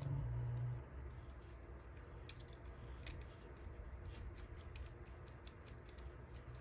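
Faint, irregular metallic clicking and scraping of picking tools working in a dimple lock's cylinder, as the plug is tried but will not turn back.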